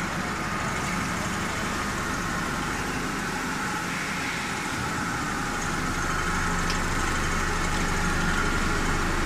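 Industrial snack-frying line machinery running with a steady mechanical drone and hum: first the fryer's mesh conveyor, then, from about four seconds in, a vibrating de-oiling machine shaking the fried pieces across its perforated screen to shed the oil.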